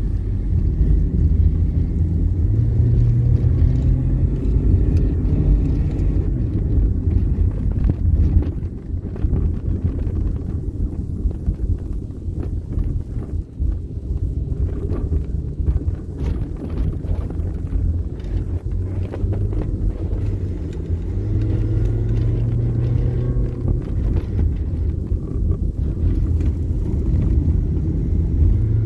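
Vehicle engine and road noise heard from inside the cabin, a steady low drone. The engine pitch steps up and down several times as the speed changes, easing off and quieter for a few seconds around the middle before picking up again.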